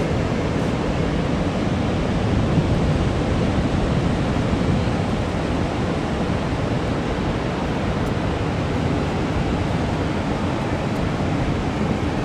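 Ocean surf breaking on a sand beach: a steady rushing noise, heaviest low down, with some wind on the microphone.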